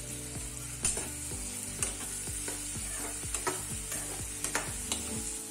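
Chopped onions, tomatoes, ginger, garlic and green chillies sizzling in oil in a frying kadai, a steady hiss as the gravy base fries. The mixture is stirred, with the utensil clicking and scraping against the pan about once a second.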